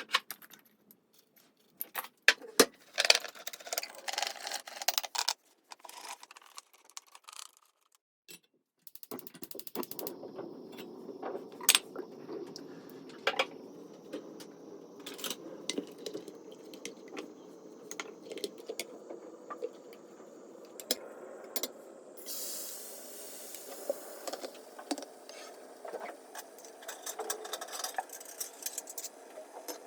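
Kitchen handling sounds: repeated clinks and knocks of dishes, utensils and containers being set down and moved. About nine seconds in a steady hum starts under the clinks, and a hiss joins it later on.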